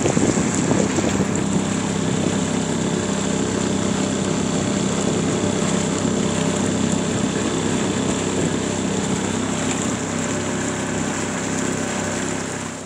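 Small Coleman outboard motor running at a steady speed, pushing a small boat along a river.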